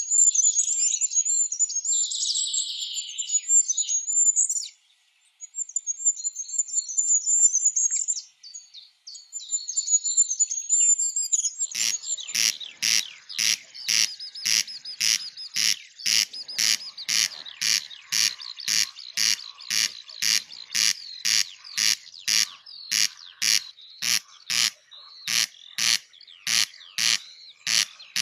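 Songbirds singing high, rapid trills and warbles for about twelve seconds, with two brief pauses. Then an abrupt change to a loud, evenly repeated harsh call, about two notes a second.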